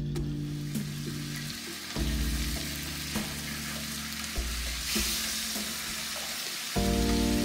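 Steak medallions searing in a stainless steel sauté pan: a steady sizzle that grows louder about five seconds in, with a few clicks of metal tongs against the pan. Background music with held low notes plays underneath.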